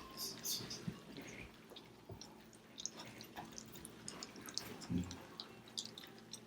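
Four-week-old German Shepherd puppies eating and lapping from bowls: many small, wet smacking and lapping clicks, with a soft low bump about five seconds in.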